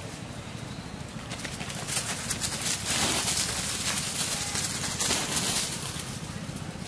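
Dry leaf litter rustling and crackling as a macaque rolls on its back and scrambles on the ground. The rustling is loudest for a few seconds in the middle.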